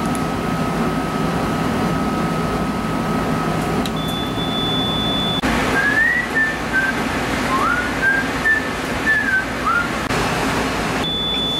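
A man whistling a short phrase of separate rising and falling notes over the steady hum of kitchen machinery. A steady high tone sounds briefly before the whistling starts.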